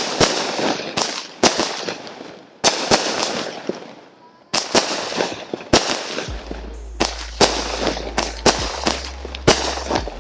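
Phantom 'Red, White and Boom' firework cake firing: a string of sharp bangs, roughly one every half-second to a second, each trailed by fading crackle.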